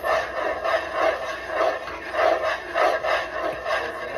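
A spoon scraping around a pot as thick maja blanca pudding is stirred fast, one rasping stroke about twice a second. Stirring this quickly keeps the thickening mixture from sticking to the pot.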